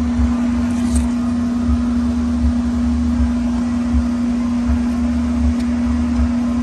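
A steady machine hum holding one even pitch without change, over an uneven low rumble.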